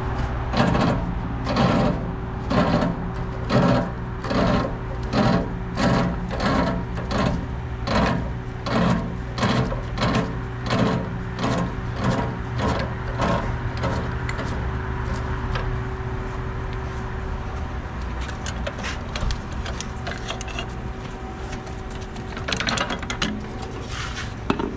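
Rhythmic mechanical strokes from hand work on a car's suspension, about two a second for the first half, then faster, irregular clicking, over a steady hum.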